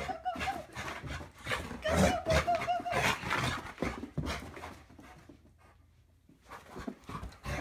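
Rhodesian ridgeback/pitbull mix dog whining in a high, wavering tone at the start and again about two seconds in, between quick panting breaths and scuffling as it runs about a small room. The sound drops away about five seconds in and picks up again near the end.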